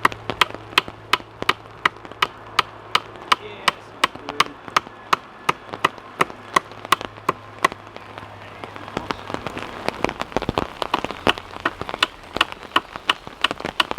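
Wooden dowel pegs being knocked into a sawhorse, sharp strikes about three a second that turn less even after about eight seconds, with rain falling behind.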